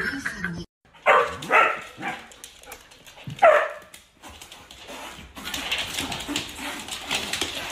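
Dog barking: three short, high-pitched yaps in the first few seconds, the last one falling in pitch, followed by a steady hiss.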